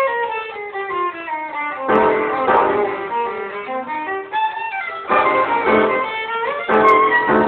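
Violin and piano playing blues together: the violin runs down in pitch through a string of notes over the first couple of seconds, while the piano strikes chords about three times.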